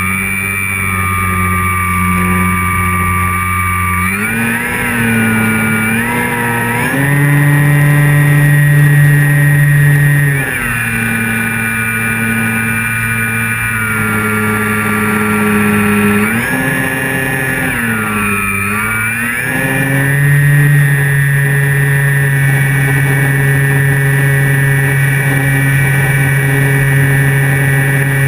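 Electric motor and propeller of a Flyzone Calypso radio-controlled plane, heard from a camera under the wing: a steady whine whose pitch steps up and down several times with throttle changes, dipping briefly and rising again a little past the middle.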